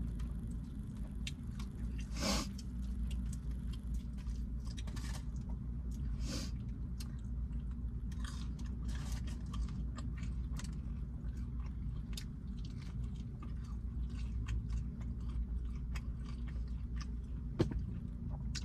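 Close-miked chewing and biting of fried chicken and fish: many small wet mouth clicks and a few louder, crisp bites, over a steady low hum.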